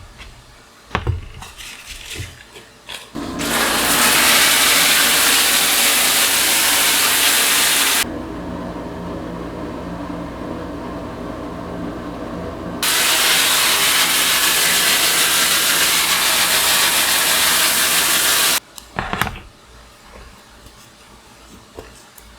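A power tool running loud and steady for about fifteen seconds, with a few knocks of handling before and after it. About five seconds in, its hissing upper part cuts out for about five seconds, then comes back.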